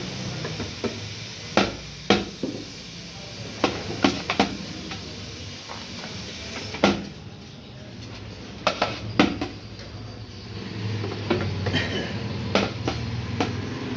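Dishes and metal utensils clattering: a dozen or so sharp, irregular clinks and knocks over a steady low hum.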